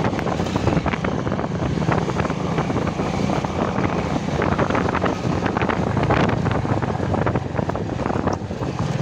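Motorcycle engine running while the bike is ridden at low speed, with wind buffeting the microphone.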